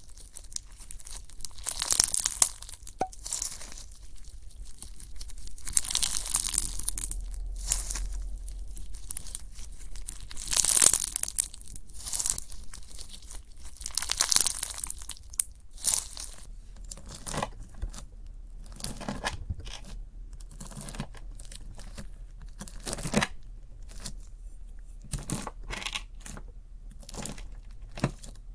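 Slime being pressed, stretched and squeezed by hand, making an uneven run of crackles and squishes, with a few louder swells about a second long.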